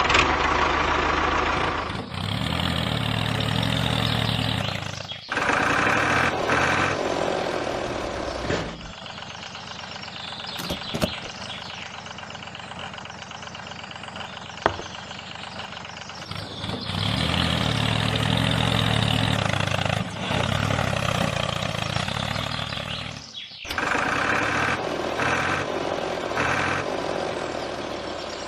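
A tractor-like engine running steadily, heard in several stretches broken by abrupt cuts. A quieter stretch in the middle holds a few sharp clicks.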